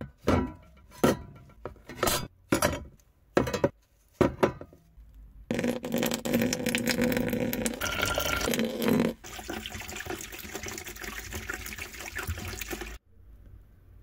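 Rusty metal grinder parts set down into an empty plastic tub, a series of separate knocks. Then liquid poured from a plastic bottle into the tub, splashing steadily for several seconds, quieter in its last few seconds and cutting off suddenly near the end.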